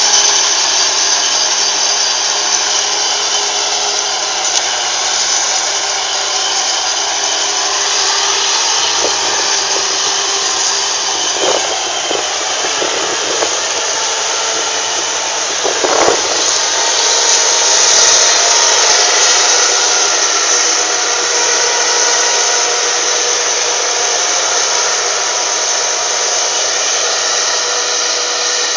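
Claas self-propelled forage harvester chopping maize, with a tractor towing a silage trailer alongside: engines and chopper run on steadily with a high whine, and a few brief rattles in the middle.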